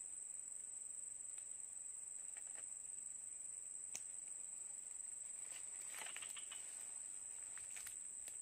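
Steady, high-pitched drone of insects in the rainforest, with a few faint clicks and rustles about halfway through and near the end.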